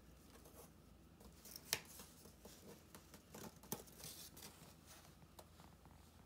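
Faint rustling and scraping of a corrugated cardboard sheet being handled and slid flat against the floor, with two sharp ticks, the first nearly two seconds in and the second about two seconds later.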